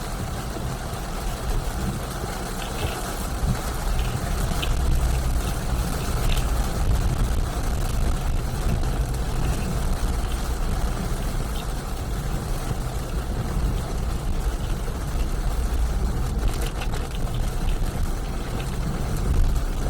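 A car driving in heavy rain: a steady low rumble of engine and road, with an even hiss from the wet road and rain.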